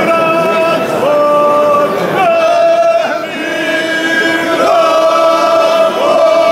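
A group of voices, mostly men, singing together unaccompanied in long held notes that slide from one pitch to the next: a traditional Herzegovinian sung circle dance (kolo).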